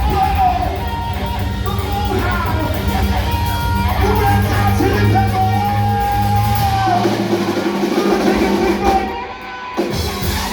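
Live rock band playing: electric guitar, bass, drum kit and a singing voice. The bass drops out about seven seconds in, and the music briefly dips near the end.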